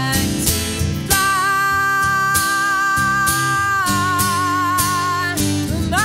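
Acoustic guitar strummed with a woman singing lead. Around a second in she holds one long wavering note until nearly four seconds, then holds a second, lower note.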